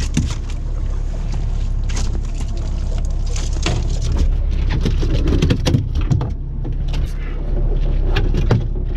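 A boat's outboard motor running at a steady low rumble, with irregular knocks and clatter on the fiberglass deck as a freshly netted coho is handled.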